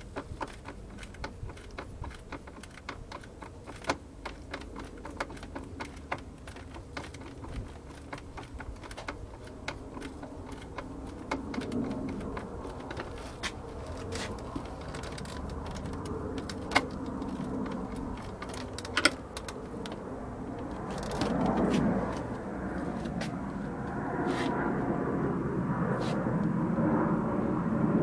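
Many small, quick clicks and ticks of a Phillips screwdriver and hands working the screws of a car's rear door trim panel. In the second half a louder, steadier noise builds up, swelling about twenty-two seconds in.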